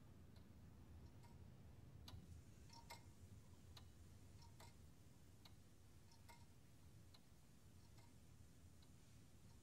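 A clock in a wooden case ticking faintly and evenly, a little more than one tick a second, over a low room hum.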